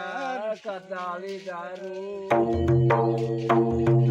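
A man singing a folk melody unaccompanied. About halfway in, a two-headed barrel drum struck by hand joins him in a quick rhythm of about four strokes a second, with a deep boom under sharp slaps.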